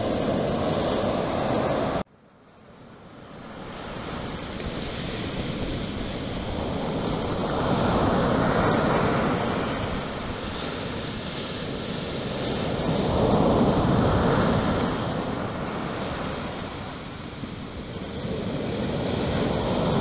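Sea surf breaking and washing up a sand-and-pebble beach, a steady rushing wash that swells with each breaking wave, with two big surges about five seconds apart and another building near the end. The sound cuts out abruptly about two seconds in and fades back up over the next few seconds.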